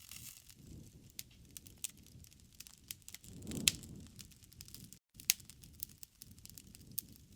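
Wood fire crackling in a fireplace: scattered sharp pops over a low rumble, with one louder pop about halfway through. The sound cuts out for an instant about five seconds in.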